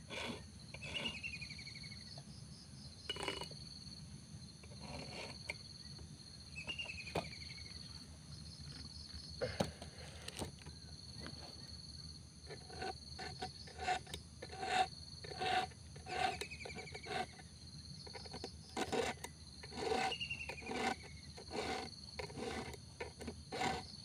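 A round file rasping on the cutter teeth of a chainsaw chain during hand sharpening. The strokes are scattered at first, then about halfway through fall into a steady run of one to two strokes a second.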